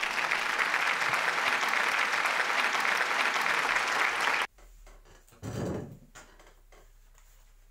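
Applause sound effect: several seconds of crowd clapping that starts and cuts off abruptly, then a brief low thump about a second later.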